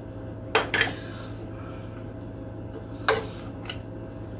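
Spoons knocking against a small saucepan as cinnamon is added and oatmeal is stirred: a few sharp clinks, two close together about half a second in and another about three seconds in.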